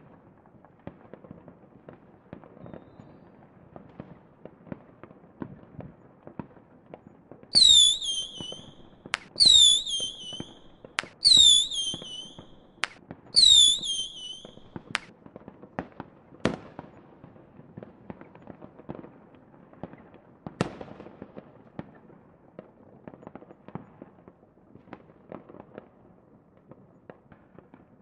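Fireworks display: a continuous crackle of many small bursts. About a third of the way in come four loud, short falling whistles about two seconds apart, mixed with sharp bangs, and one more bang follows a few seconds later.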